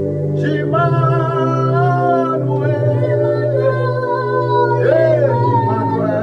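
Gospel worship song: a singer holding long, wavering notes over steady low backing chords, with a short sliding phrase about five seconds in.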